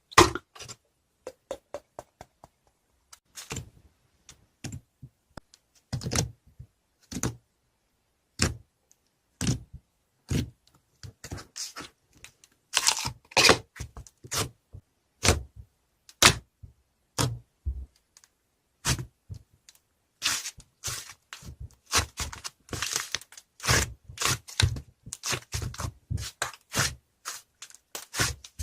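Irregular sharp clicks, knocks and crackles close to the microphone, some single and some in quick clusters, with short silent gaps between.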